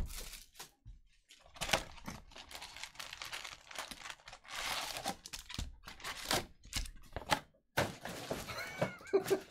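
Foil trading-card packs crinkling and a cardboard box lid being handled as the packs are pulled out of a hobby box and stacked, in irregular rustles, tears and light thunks.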